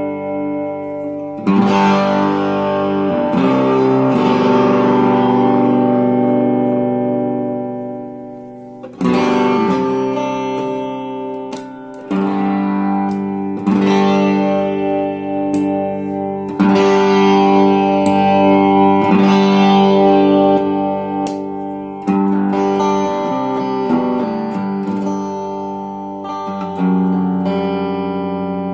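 Electric guitar strumming chords through a repaired Vox AC4TV valve amp. Each chord rings out and fades before the next strum, with new chords about every two to five seconds.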